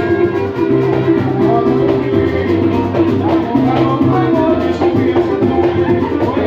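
Samba music with percussion, playing continuously.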